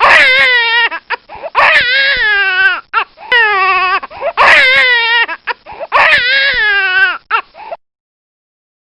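A baby crying in a series of wailing cries, each about a second long and wavering in pitch, breaking off shortly before the end.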